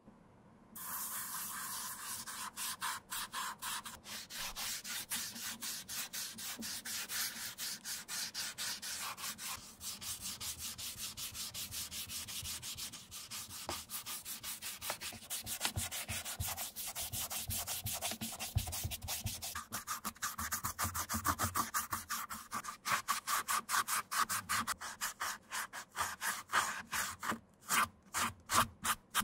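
Cotton ball on a stick scrubbing dye remover into a black leather shoe to strip the old finish, in brisk back-and-forth rubbing strokes. It starts about a second in, and the strokes become more separate near the end.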